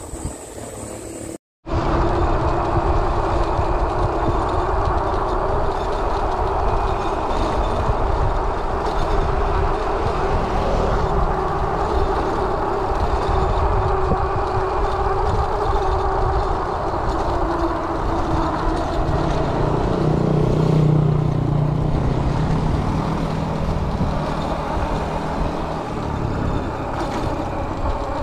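Riding noise from a fatbike on the road: wind rushing over the microphone and a steady rumble from the tyres, with a humming drone that fades out about two-thirds of the way through. It follows a brief dropout about a second in.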